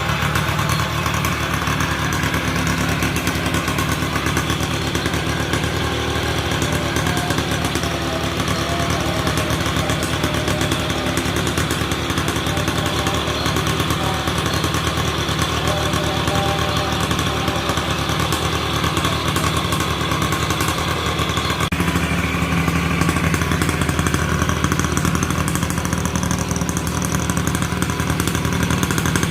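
Yamaha F1ZR two-stroke motorcycle engine running steadily, with a slight change in its sound about three-quarters of the way through.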